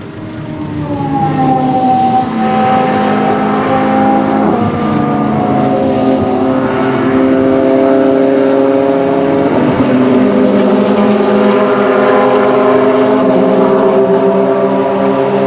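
Several race car engines approaching together, getting louder over the first two seconds and then holding steady. Their notes overlap at nearly constant pitch.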